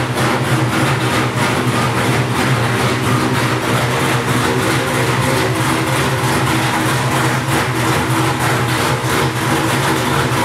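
Ford 427 SOHC 'Cammer' V8 running steadily on an engine dyno, holding an even speed with no revving.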